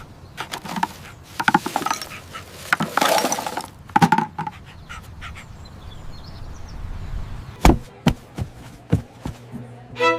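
A series of scattered knocks and clatter, with a rushing noise about three seconds in and a single heavy thump near the end.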